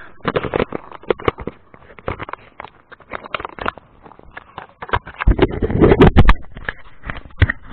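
Horse's hoofbeats under a rider, mixed with scraping and knocking from the head camera as it shifts on its mount. A louder, deeper rush of noise comes about five seconds in and lasts over a second.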